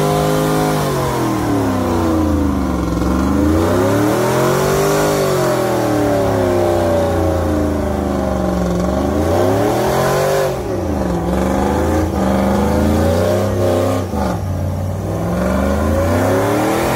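GMC Sierra pickup's engine revving hard during a burnout, its pitch rising and falling about every two to three seconds as the throttle is worked.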